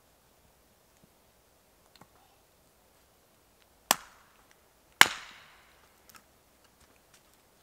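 Axe splitting spruce wood on a stump chopping block: two sharp chops about a second apart around the middle, the second louder with a short ring after it.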